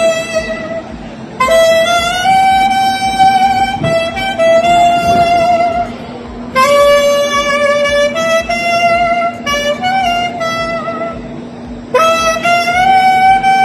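Alto saxophone playing a slow melody of long, held notes with slides between pitches, in phrases broken by short breaths; new phrases start about a second and a half in, about halfway through, and near the end.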